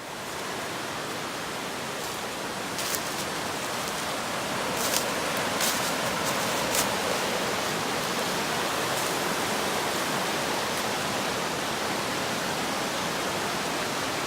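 Jack's River rushing steadily over rocks and rapids, growing louder about four seconds in, with a few short sharp clicks over it.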